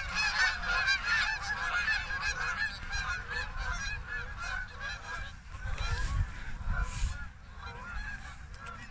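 A flock of geese honking, many calls overlapping at once, thinning out about halfway through. A low rumble rises underneath in the middle.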